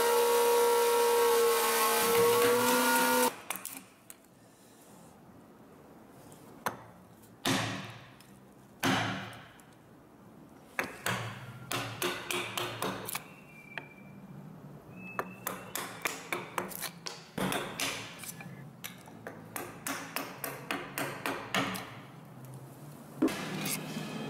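A handheld electric power tool runs at a steady high whine on the wooden windshaft and cuts off about three seconds in. Then a wood chisel is struck in quick runs of sharp blows, chopping out wood between saw cuts.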